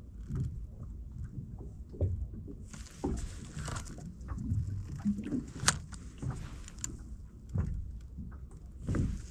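Low rumble of wind and water around a small fishing boat, with a few sharp clicks and knocks.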